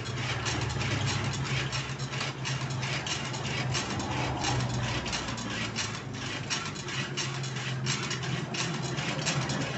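Homemade rice transplanter's chain drive and linkages being worked, with rapid metal clicking and rattling as the seedling tray shuttles back and forth, over a steady low hum.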